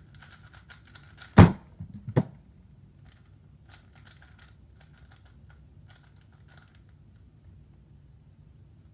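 Plastic speedcube clicking and clacking as its layers are turned fast, with two louder knocks about a second and a half and two seconds in, the clicks thinning out after that.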